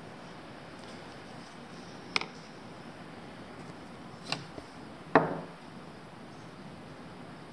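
Three sharp knocks of small tools and the wooden slingshot frame being handled and set down on a workbench, the third the loudest with a short ringing tail, over a faint steady room hiss.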